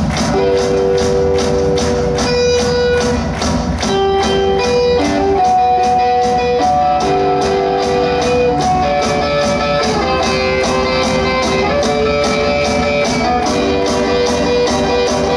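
Live rock band: electric guitars playing held, melodic notes over a steady, quick beat of about three or four hits a second.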